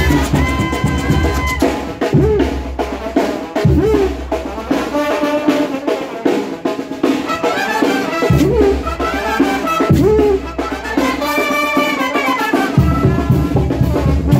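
Mexican banda brass band playing live while marching: trumpets and trombones over a sousaphone bass line and drums.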